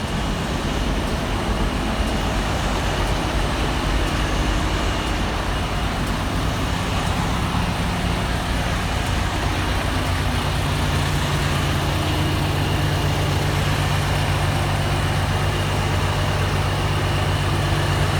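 Semi truck's diesel engine and tyre noise while driving, a steady drone whose note changes about ten seconds in.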